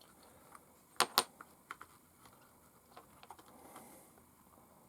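Small clicks and taps of a tiny spanner and brass wheel weights against a micro RC crawler's wheel as the weights are fitted: two sharp clicks about a second in, then a few lighter ticks.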